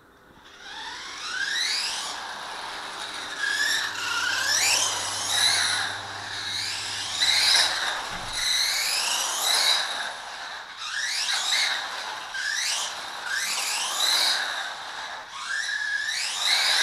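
Electric motor of a radio-controlled car whining, rising sharply in pitch with each burst of throttle and levelling off, over and over, roughly once a second.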